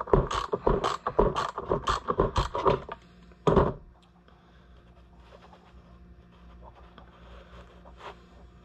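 Rapid clicking and scraping from hand and tool work on a Homelite Super XL chainsaw's starter housing, lasting about three seconds. About three and a half seconds in comes one louder scrape, then only faint handling sounds.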